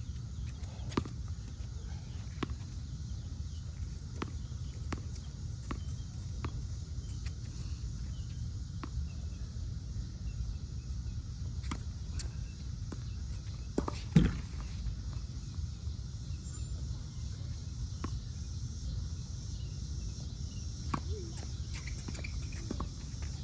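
Tennis ball being struck by rackets and bouncing on a hard court during a rally: irregular sharp pops, the loudest about 14 seconds in, over a steady low rumble.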